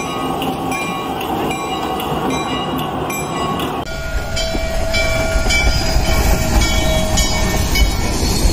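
Locomotive sounds in two parts. First a diesel switcher runs steadily. About four seconds in, a cut brings in the heavy low rumble of a large steam locomotive running past at speed, with a steady tone above it and repeated sharp strokes.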